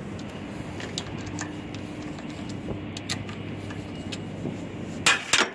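Buran snowmobile's RMZ-640 two-stroke twin engine idling steadily, with a brief loud clatter near the end.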